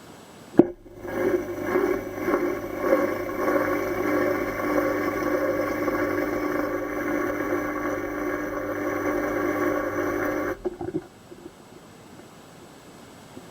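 Indesit washing machine clicking on about half a second in, then running with a steady mechanical hum, uneven for the first few seconds before it settles. It cuts off abruptly about ten seconds later.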